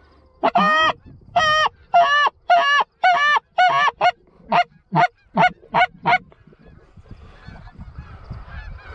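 Goose honks: about a dozen loud calls in quick succession, the first few longer, the last several shorter and clipped, stopping about six seconds in.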